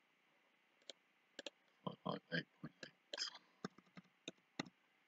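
Faint, scattered clicks of a computer mouse and keyboard keys as a dimension value is typed into the CAD software.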